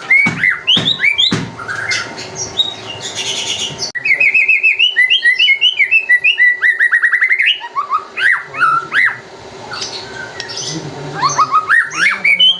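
White-rumped shama singing a loud, varied song of quick whistled phrases. From about four seconds in, it breaks into a fast run of rapidly repeated notes lasting three seconds or so, then goes back to varied phrases.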